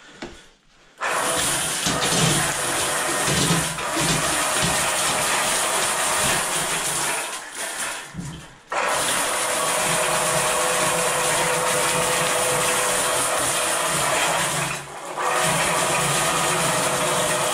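Electric Eel Model C drain-cleaning machine running, its motor spinning the steel snake cable as it is fed into a drain stack cleanout. It starts about a second in and cuts out briefly twice, once near the middle and once about three-quarters through.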